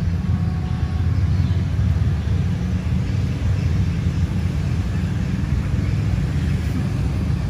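A steady low rumble of outdoor background noise, with a faint steady tone in the first second.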